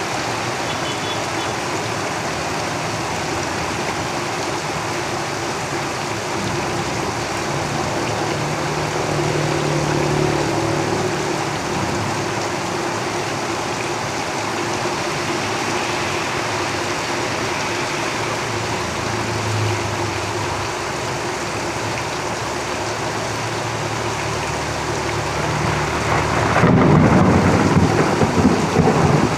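Steady rain drumming on a tin roof. Vehicles passing on a road add a low engine hum that swells and fades several times, and a louder rumble builds near the end.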